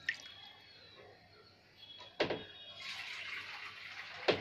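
Water poured into a pan of fish curry, with a faint splashing hiss, and two sharp knocks, about two seconds in and near the end.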